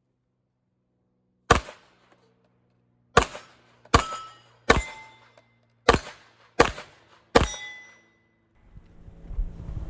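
Seven rifle shots: one, a pause of over a second, then six in quick succession about one every 0.7 s, several followed by a brief metallic ring. A low rushing noise builds near the end.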